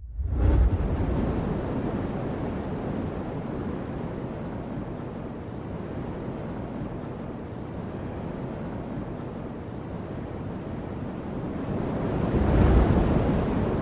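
Cinematic title sound design: a deep boom about half a second in, then a steady wind-like rumbling rush that swells into a second deep boom near the end and begins to fade.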